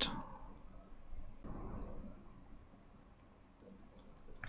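Faint computer keyboard keypresses, a few quick clicks about three to four seconds in, over a quiet room with a faint high-pitched hiss.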